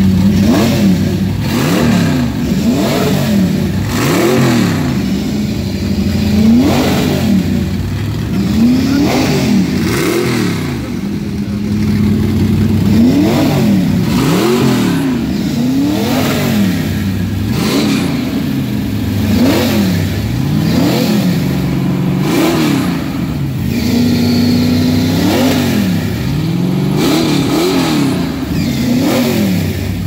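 Gasser hot rod's 396 big-block V8 idling and being blipped over and over. Each short rev rises and falls back to idle, roughly one a second.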